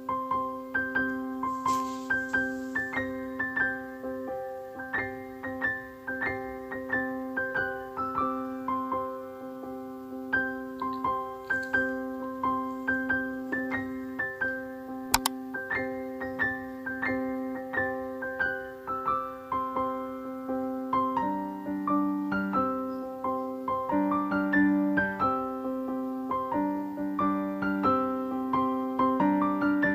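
Background piano music: a held chord under a melody of short notes, with the lower notes changing in the last third. A single sharp click about halfway through.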